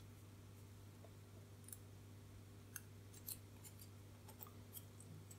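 Faint, scattered light ticks and scrapes from handling a printed circuit board whose resistor wire leads poke through it, over a low steady hum.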